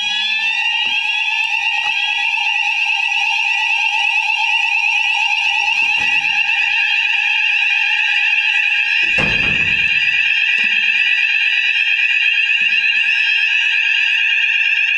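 Fire alarm sounders of a newly installed system sounding continuously during a fire alarm test, a fast-warbling tone at several pitches at once. A second, sweeping alarm tone drops out in the first second or two. A single thump about nine seconds in.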